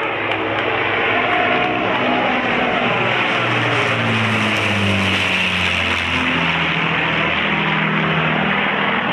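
Avro Lancaster bomber's four Rolls-Royce Merlin V12 piston engines running as it flies low overhead. The sound is loudest around the middle, and the engine note drops in pitch about five seconds in as the aircraft passes.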